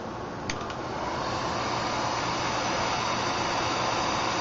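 A click about half a second in, then an electric heat gun blowing steadily, used to shrink heat-shrink tubing over an ESC wire.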